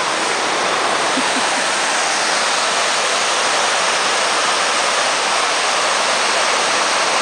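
Water of the 9/11 Memorial's south pool waterfall cascading down the stone walls into the basin and the central void, a steady, loud, even rush of falling water.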